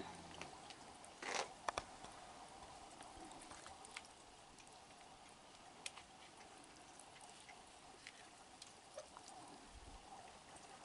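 Faint taps and scrabbling of a raccoon feeding with its head in a plastic bucket, with a short louder rustle and two sharp knocks about a second and a half in.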